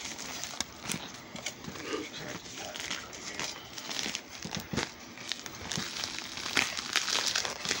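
Rustling of a bedspread and handling noise on the phone, with irregular clicks and crinkles. It grows louder near the end as a paper mailer package is handled.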